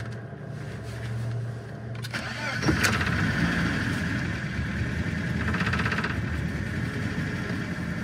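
1993 BMW 318i's four-cylinder engine cranking on the starter for about two and a half seconds, then catching and running steadily. This is the first start after a replacement engine computer (DME) was fitted to cure its crank-no-start.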